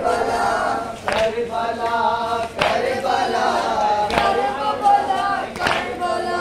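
Men's voices chanting a Shia noha together, with four sharp slaps of matam, mourners striking their chests in unison, about every one and a half seconds.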